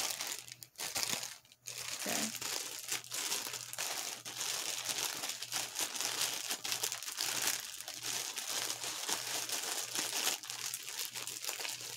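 Clear plastic packaging crinkling and rustling steadily as it is handled and worked open to get a tote bag out. It starts about two seconds in, after a brief quieter moment.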